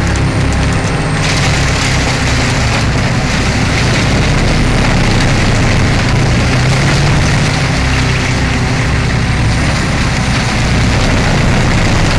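Bruks 806 wood chipper running steadily under load, its heavy diesel engine working as it chews through logs.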